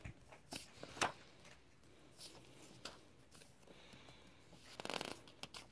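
Faint rustling and soft taps of paper planner pages and dividers being turned by hand, with a sharper tap about a second in and a longer rustle near the end.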